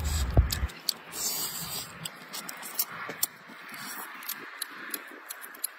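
Cooked mantis shrimp shell being cracked and peeled apart by hand: a run of small, irregular crisp clicks and crackles, with mouth-chewing sounds.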